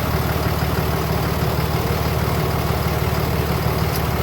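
Car engine idling steadily, with its low hum constant throughout, while the AC system is being charged.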